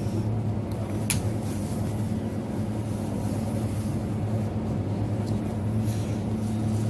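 Steady low machine hum of a convenience store's appliances, with one sharp click about a second in.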